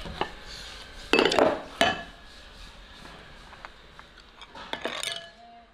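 Porcelain rice bowls and wooden chopsticks clinking and knocking together as the emptied bowls are gathered up from the table. The loudest knocks come about a second in, with a few lighter clinks near the end.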